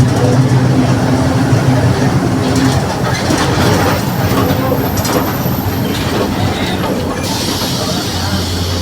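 Mercedes-Benz OF 1721 BlueTec 5 city bus under way, its four-cylinder diesel and driveline humming, with the differential growling. The engine note drops away after a couple of seconds and the level eases, and a hiss starts about seven seconds in.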